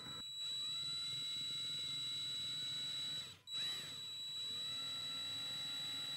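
Small electric drill turning a Vix bit to drill out the rivet post of a diecast toy car. It gives a steady high whine that spins up, cuts out briefly a little past halfway, then winds back up to speed.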